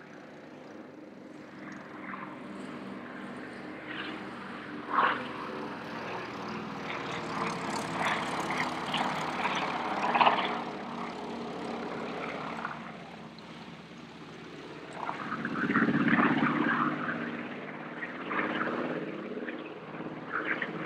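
The twin Pratt & Whitney R-2000 radial piston engines and propellers of a DHC-4 Caribou droning through low display passes, a steady multi-toned engine note. It grows louder as the aircraft passes closest, about two-thirds of the way through.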